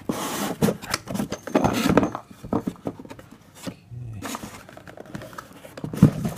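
Packaging being handled and unpacked: cardboard and plastic rustling and scraping, with irregular knocks and clicks.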